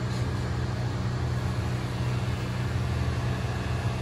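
Corded electric hair clippers running with a steady low buzz.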